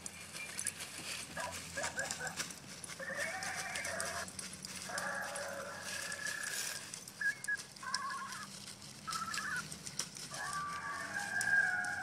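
Small terriers whining in repeated high-pitched bouts, about seven of them, while they nose and dig together in dry leaves, over a light crackle of rustling leaves.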